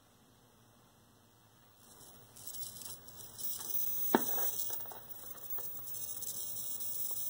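Vacuum tube TV's horizontal and high-voltage section coming up about two seconds in: a high hissing crackle with several sharp snaps, the loudest about four seconds in. This is arcing, which the repairer traces to a bad deflection yoke.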